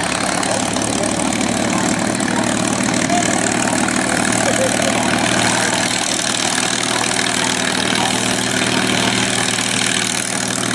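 North American P-51D Mustang's Packard Merlin V-12 engine running at a steady idle as the fighter taxis, with its propeller turning over.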